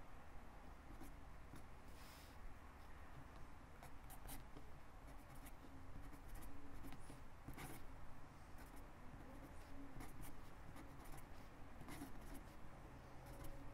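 A pen writing cursive on lined notebook paper: faint scratching of the tip across the page in short, irregular strokes, over a low steady room hum.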